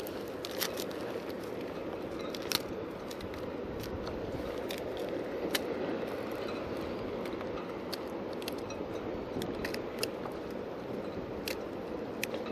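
Water lapping and sloshing against a plastic kayak hull, with irregular sharp clicks and ticks of fishing tackle being handled as a sabiki rod is rigged.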